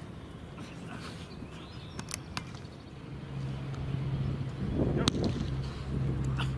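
Outdoor ambience with a few sharp taps. A steady low hum sets in about three seconds in and grows louder.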